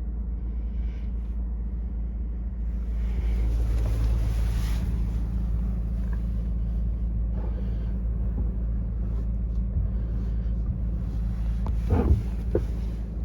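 An engine running steadily. A louder rushing noise swells about three to five seconds in, and there is a brief knock near the end.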